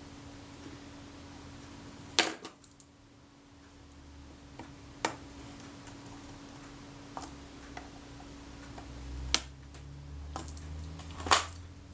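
Small metal tools and parts clicking and tapping against a camera's metal body during fine screw work: a handful of sharp, separate clicks a couple of seconds apart, over a faint steady hum.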